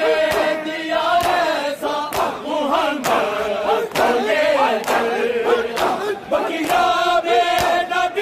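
Crowd of male mourners beating their chests (matam) in unison, a sharp collective slap about every 0.8 s, under a group of men chanting a Shia noha.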